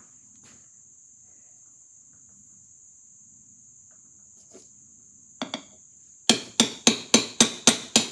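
Hammer striking a brass drift to drive the spindle shaft out of an early Victor M phonograph motor. Two light taps come a little past five seconds in. From about six seconds a quick, even run of sharp metallic blows follows, about four a second, each ringing briefly.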